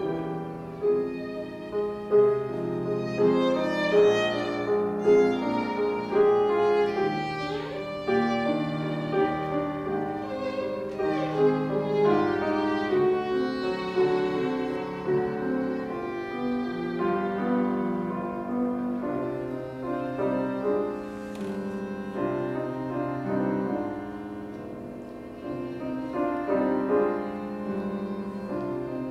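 Violin and grand piano playing together, the violin carrying long bowed notes over the piano's chords.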